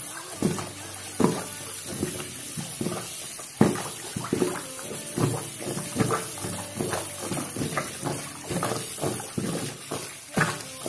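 Water splashing and sloshing in a sink basin in a run of irregular strokes, a few each second.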